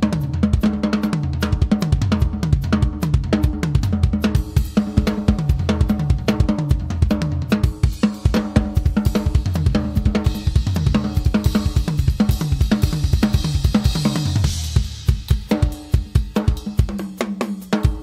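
Acoustic drum kit played in an improvised solo: fast, dense strokes on snare, toms and bass drum, with Sabian HHX cymbals washing over it in the middle. About fifteen seconds in the playing briefly drops back, then picks up again with separate hits.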